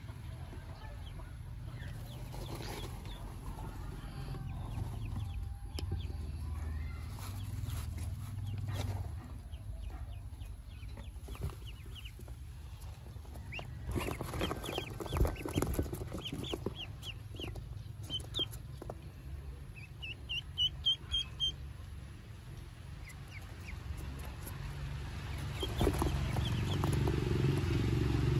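Newly hatched ducklings peeping in short high chirps, in scattered runs with a quick series of louder peeps about two-thirds of the way through. A few knocks and rustles come about halfway, and a low rumble underneath grows louder near the end.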